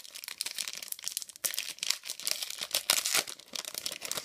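Foil wrapper of a Pokémon TCG Generations booster pack crinkling and tearing as it is pulled open by hand. A dense run of crackles, with louder rips about a second and a half and three seconds in.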